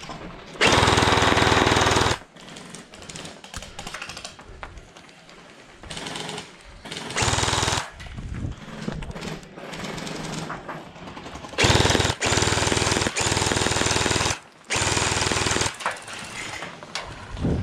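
Electric gel blaster firing on full auto in four bursts: one of about a second and a half near the start, a short one around seven seconds in, and two long ones back to back near the end, each a fast, even rattle of the motor and gearbox cycling.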